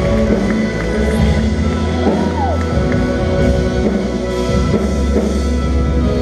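Worship band playing rock-style music with drums and guitar, with one whoop from the congregation rising and falling in pitch about two seconds in.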